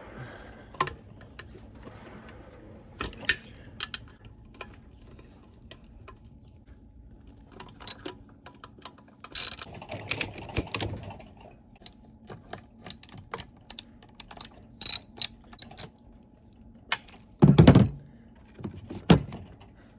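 Hand ratchet clicking as it backs out the bolts that join the two halves of an NV3500 transmission's aluminium case, with metallic clinks of tools and bolts. There is a quick run of clicks in the middle and two louder clunks near the end.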